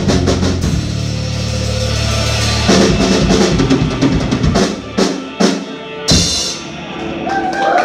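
Live rock band playing out the end of a song: drum kit fills over bass, then a few big accented hits about five and six seconds in that ring out.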